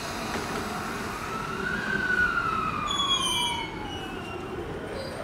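Toei 10-300 series electric train pulling away, its inverter-driven traction motors whining in a single tone that rises, falls again, and starts to rise once more near the end. A brief high-pitched squeal comes about halfway through.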